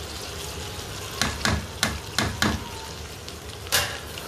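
Onion and tomato masala sizzling in a karahi, with a quick run of about five sharp spatula taps and scrapes about a second in as ground spices are knocked off a plate into the pan, and one louder knock near the end.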